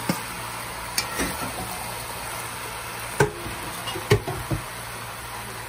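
Metal spoon knocking and scraping against a frying pan while cut bodi beans and sliced potatoes are stirred, over a steady sizzle of frying. The loudest knocks fall about three seconds in and again about a second later.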